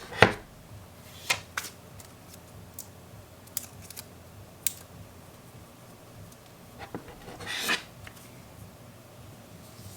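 Hands handling a smartphone and pressing a thin adhesive protective strip onto its edge: a scatter of small sharp clicks and taps, and one short rustling scrape about three quarters of the way through.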